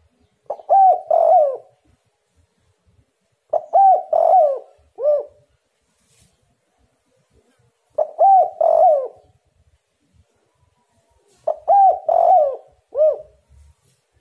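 Spotted dove cooing: four phrases spaced a few seconds apart, each a quick run of rising-and-falling coos ending in a separate shorter coo.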